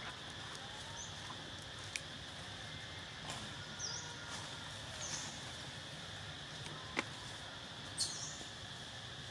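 Forest ambience: a steady high hum with a low hum beneath it. Several short high chirps or squeaks come through it, with a few sharp clicks, the loudest about seven seconds in.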